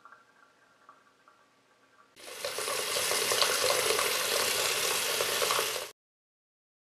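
Water running hard from a single-lever bathroom faucet into the sink, turned on abruptly about two seconds in after faint room tone, and cut off suddenly near the end.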